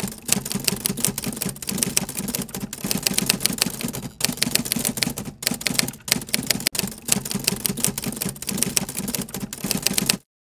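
Typing sound effect: a fast, continuous clatter of key strikes with a few brief pauses, cutting off suddenly just before the end.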